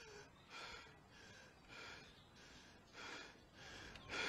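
A man breathing hard through short, quiet breaths, about two a second: he is out of breath.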